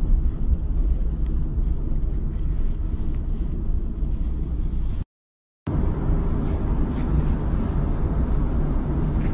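Steady low rumble of a vehicle cabin on the move, picked up on a phone's microphone, with no speech. It is cut off for about half a second of silence around five seconds in, then carries on the same.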